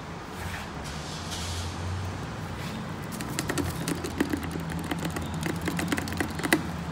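Elevator call button clicking as it is pressed over and over: a run of quick, irregular clicks starting about halfway through, over a steady low hum.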